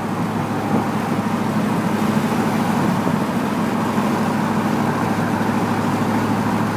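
2001 Ford Lightning SVT's supercharged 5.4-litre V8 running steadily, heard from inside the cab: a even, low hum with no revving or change in pitch.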